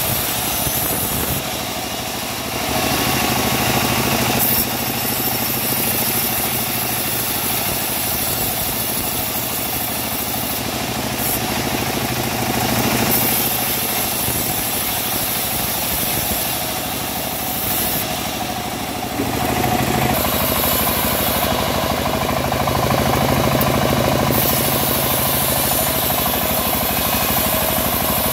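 Homemade band sawmill running, its engine driving the band blade as it rips a teak log into slabs; the cutting noise over the steady engine rises and falls as the log is pushed through the blade.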